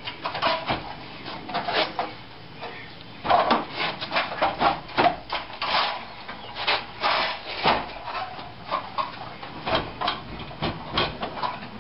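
New steel radiator support being worked into place on the front frame rails of a 1998 Ford Mustang GT: irregular scraping, rubbing and knocking of metal against metal, with a short quieter pause about two seconds in.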